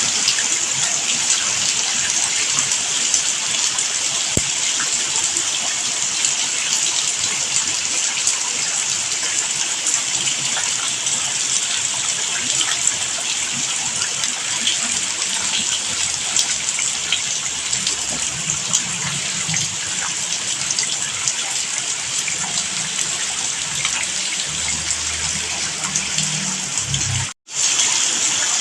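Steady rain falling. It cuts out suddenly for a split second near the end, then resumes.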